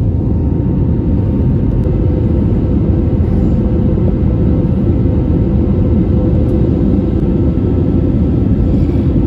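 Passenger jet cabin noise: a loud, steady low rumble of engines and airflow, with a faint even hum above it.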